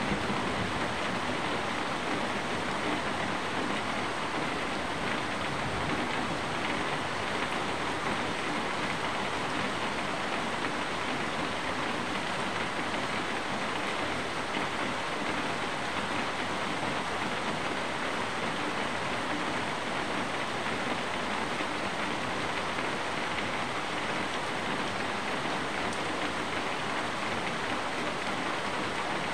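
Steady rain falling outside, an even hiss that holds at the same level throughout with no distinct drops or breaks.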